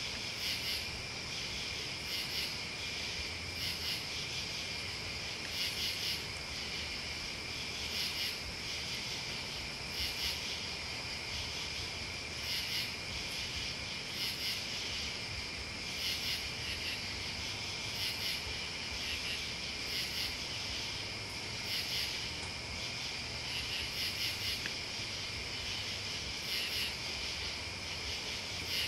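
Night chorus of crickets and other insects: a steady high trill underneath, with short, higher chirps repeating every second or two.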